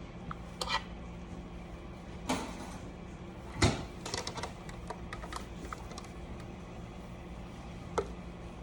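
A few scattered sharp clicks and knocks of small hard objects being handled, the loudest about three and a half seconds in, over a steady low hum.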